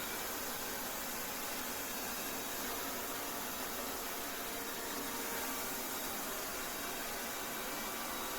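Lefant M310 robot vacuum cleaner running: a steady whir from its suction fan, with a faint high-pitched tone over it.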